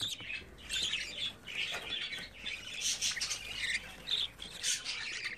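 Budgerigar chicks making short, harsh, high-pitched begging calls, one after another in quick, irregular succession, as they ask to be fed.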